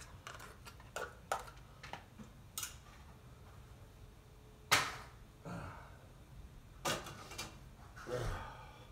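Light clicks and taps of a small food can and plastic cat-food bowls being handled on a kitchen counter, with one sharper knock about halfway through and a few more knocks near the end.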